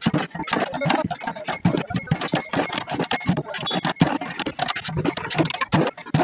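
Large batch of masala-coated fish pieces being stirred in a big metal pot with a long wooden stick: rapid, irregular knocks and scrapes of the stick against the pot and through the fish.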